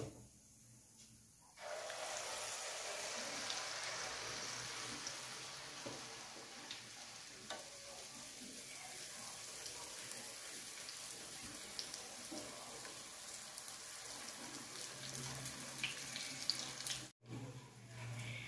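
Sel roti batter frying in hot oil in a wok: a steady sizzle that starts about a second and a half in, as the batter goes into the oil, with a few light taps over it.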